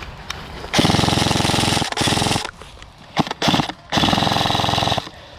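Krytac Kriss Vector airsoft electric gun firing rapid full-auto bursts, very fast rate of fire: a burst of about a second, a short one, two brief spurts, then another burst of about a second.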